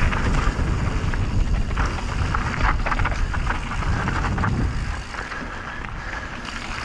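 Canyon Strive CF 6.0 mountain bike riding downhill on a dirt trail: tyres rolling and the chain and frame rattling over bumps, under wind rumble on the camera microphone. The noise eases somewhat after about five seconds.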